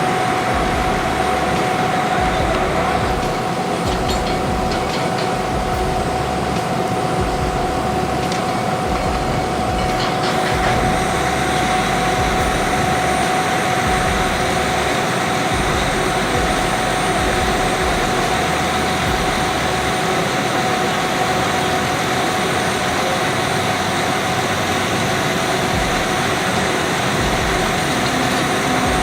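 Steady machine noise with a constant high hum running under it, with a few faint clicks between about four and ten seconds in.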